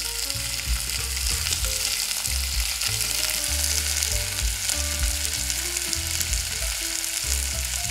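Flour-dusted beef cubes searing in hot olive oil in an enamelled cast iron pot, a steady, even sizzle as the pieces are browned and turned.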